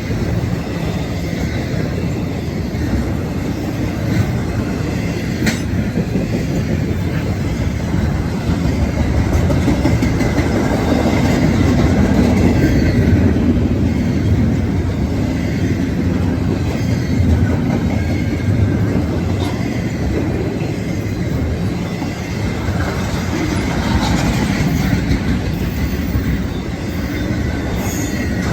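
A train rolling past on the rails, its wheels clattering steadily with a faint squeal. It swells a little louder toward the middle and then eases.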